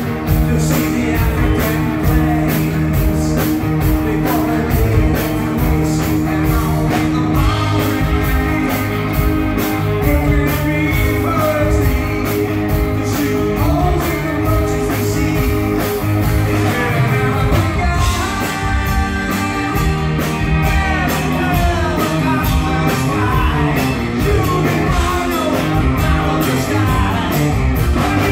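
Live rock band playing through the venue's PA: electric guitars, bass and drums with a man singing lead.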